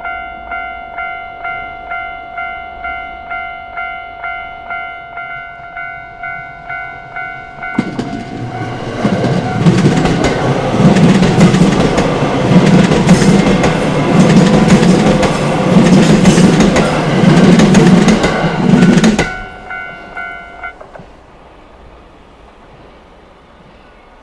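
Japanese level crossing warning bell ringing at a steady beat of about two or three strikes a second, then a train passes loudly for about eleven seconds, its wheels clattering over the rail joints in a slow regular rhythm. The bell rings on briefly after the train has gone and stops near the end.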